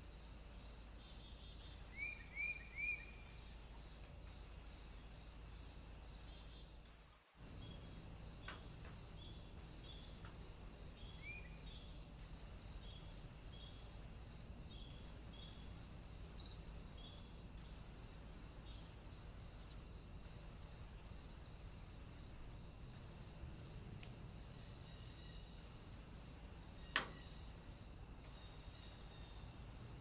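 Daytime insect chorus: a continuous high buzz with a regular pulsing chirp about twice a second. A few short, quick bird notes come about two seconds in, and a single sharp click near the end. The sound drops out briefly about seven seconds in.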